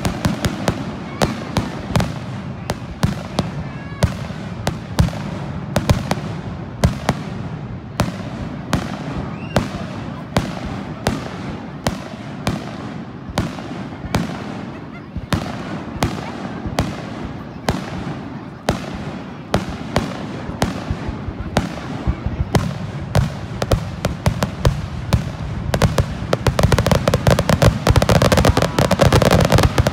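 Aerial fireworks shells bursting in a rapid string of bangs, about two a second. About 26 seconds in, the bursts thicken into a dense, rapid crackling and grow louder.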